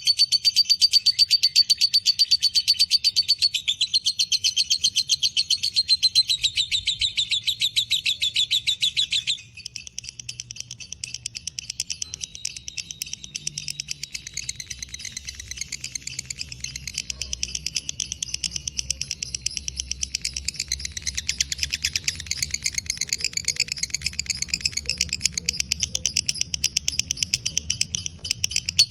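Lovebird 'ngekek panjang': one long, unbroken chattering trill of high, rapid-fire notes. It drops in loudness about nine seconds in and then carries on more softly.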